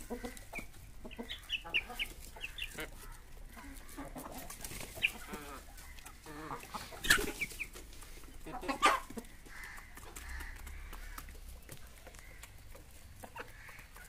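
Chickens clucking and chirping softly while pecking grain off a concrete floor, their beaks tapping many small clicks. Two louder knocks come about seven and nine seconds in.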